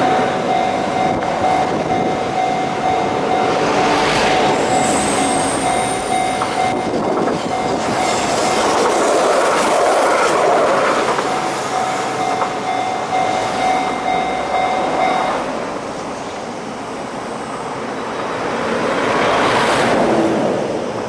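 Hiroden Miyajima Line tram passing over a level crossing while the crossing's Sankosha electronic warning bell rings in an even repeating tone; a brief high whine sounds from the wheels early on, and the bell cuts off about two-thirds of the way through as the crossing clears.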